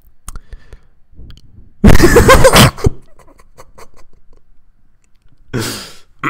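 A loud burst of a person's voice that is not words, lasting about a second, about two seconds in, with a weaker, shorter one near the end.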